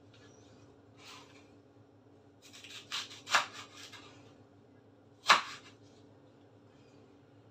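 Kitchen knife cutting leek stalks on a wooden cutting board: a few sharp chops, several around three seconds in and a loud single one a little past five seconds.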